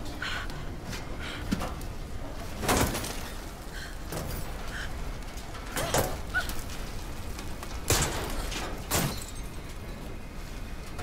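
Film sound effects of a metal plane wreck shifting over a waterfall: four sharp cracks and thuds with a faint creak between them, over a steady low rumble of falling water.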